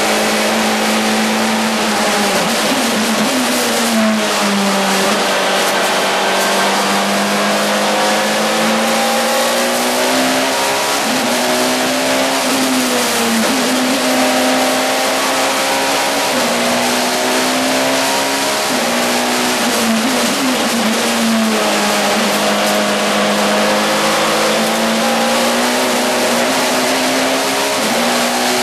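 Toyota Chaser's engine heard from inside the cabin, running hard at speed. Its pitch drops and climbs back a few times as the car slows for corners and accelerates out, most clearly about three seconds in and again around twenty seconds in.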